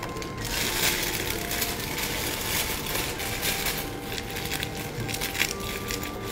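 A plastic piping bag crinkling and rustling, in irregular crackles, as it is handled and twisted closed around its filling of jam.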